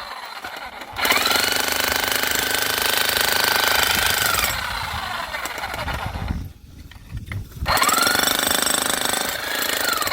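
An electric jackhammer (demolition hammer) breaking rock, in two long bursts with a short pause between them. The motor whine rises as each burst starts and falls away as it stops.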